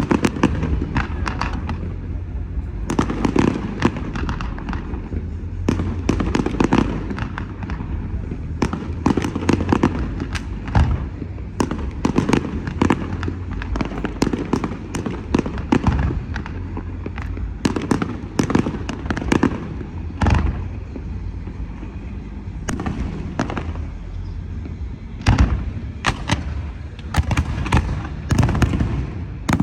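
Fireworks display: many sharp bangs and crackles in quick succession over a continuous low rumble, with denser flurries about three seconds in, around twelve seconds, and near the end.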